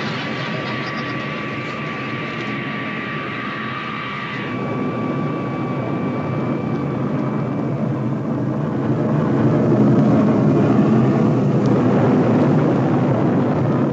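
Four-engine jet airliner's engines at takeoff power: a steady high whine over a rumbling roar that stops about four seconds in, then the rumble swells louder.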